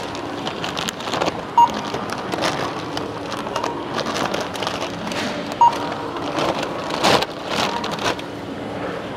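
Self-service checkout barcode scanner beeping twice, about four seconds apart, as groceries are scanned. Between the beeps there is rustling and clatter of plastic bags and items being handled.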